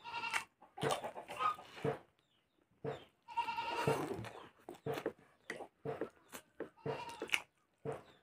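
Close-up eating sounds: a metal spoon clicking and scraping on a steel plate, with chewing and mouth noises of curry and rice. Two wavering high-pitched calls about a second long sound over it, one at the start and one about three and a half seconds in.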